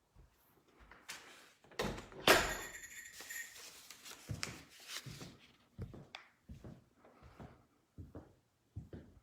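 Irregular footsteps and small knocks, with a louder rattling scrape about two seconds in that lasts about a second.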